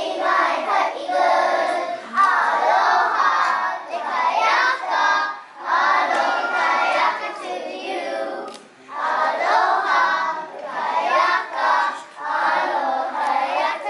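A group of preschool children singing a song together, in phrases a few seconds long with short breaks between them.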